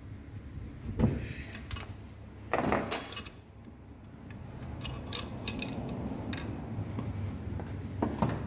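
Metal knocks and clatter of tools and engine parts being handled during motorcycle engine reassembly: a knock about a second in, a louder clatter around three seconds, and another knock near the end.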